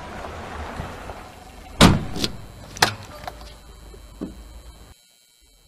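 A car pulling up with its engine running. Two car doors slam, about two and three seconds in, with a few lighter knocks around them. The engine sound cuts off suddenly about five seconds in.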